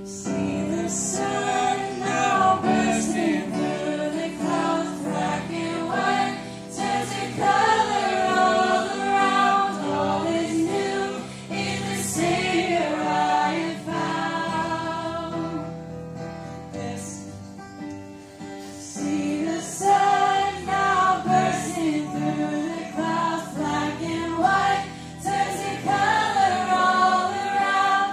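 Live Christian worship music: a woman sings lead into a microphone with other voices and an acoustic guitar. It quietens for a few seconds about two-thirds of the way through, then builds again.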